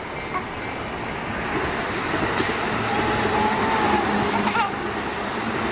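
A train running past on the rails, its rumble and wheel noise building up over the first few seconds and staying loud.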